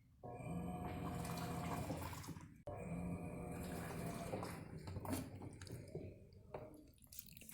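Electrolux LTD06 washing machine filling with water: water rushes in with a steady low hum, cuts off abruptly about two and a half seconds in and starts again at once, then thins to splashes and drips near the end.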